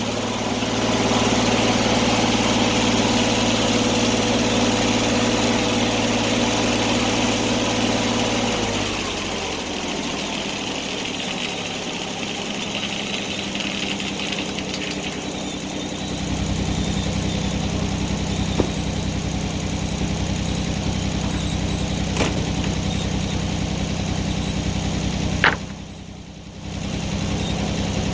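Engine powering an antique sawmill running steadily, its pitch falling away about nine seconds in. After a quieter stretch a lower, steady engine hum takes over. There are a few sharp clicks, the loudest near the end, just before a brief drop in the sound.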